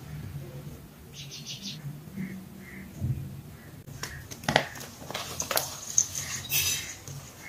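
Wedges of hydrophobic chalk squeezed and crumbled by hand in a bowl of water: crisp crunching and crackling as the chalk breaks into dry powder, mostly in the second half with a few sharp cracks.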